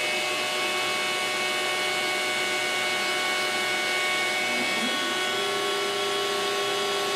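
X-Carve CNC machine with a DeWalt router spindle and dust extractor running, a steady machine whine over a rush of air, as the router moves over the board; a lower tone joins in about five seconds in.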